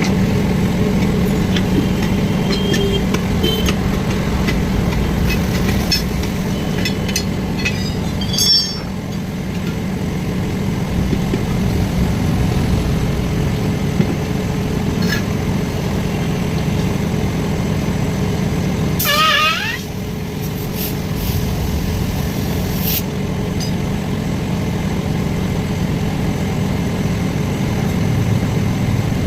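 An engine running steadily with a low drone, with scattered clicks and taps over it. About nineteen seconds in there is a brief wavering high-pitched sound.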